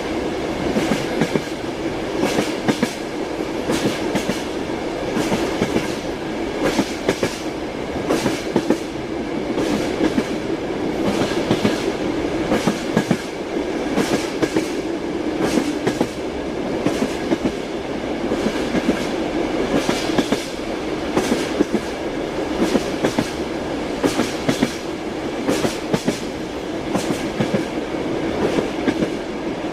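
Train wheels clacking over rail joints: a steady rolling rumble with repeated sharp clicks coming in small clusters as the carriages run along the track.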